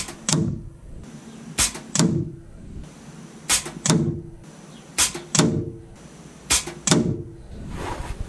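Anschutz 9015 air rifle firing five shots, each a sharp crack followed less than half a second later by a duller knock as the pellet strikes the target downrange.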